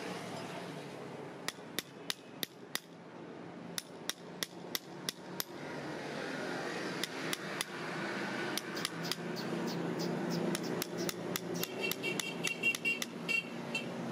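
A hammer striking a steel blade held against a bull's hoof in sharp metallic taps: a short run of five, then six, then a longer, quicker series, some of the later taps ringing briefly. A steady low hum runs underneath.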